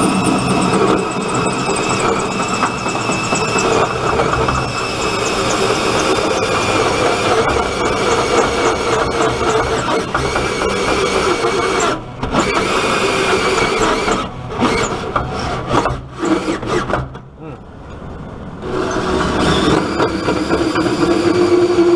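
Cordless Makita drill driving a hole saw into the truck's radiator core support: the motor whines over the grinding of the cut. About twelve seconds in it stops briefly, then starts and stops in short goes and falls quiet for a moment before the drill runs again near the end.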